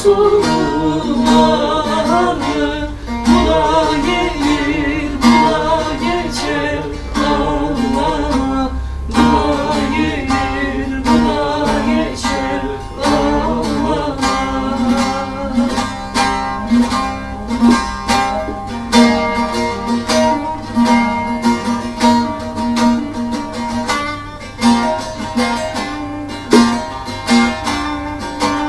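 Instrumental music led by plucked strings, with a wavering melody over a steady rhythmic accompaniment.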